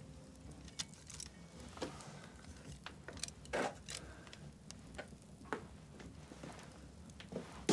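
Scattered light clicks and knocks from a wooden stick and cord being taken down off wall hooks and handled, with a sharper knock near the end.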